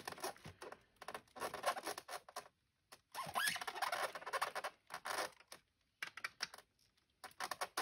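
Phillips screwdriver turning in the knee-joint screw of a large plastic HasLab Marvel Legends Sentinel figure, with hands shifting the plastic leg: scratchy clicks and scrapes in irregular bursts with short pauses. The screw is already tight, so it cannot firm up the loose knee.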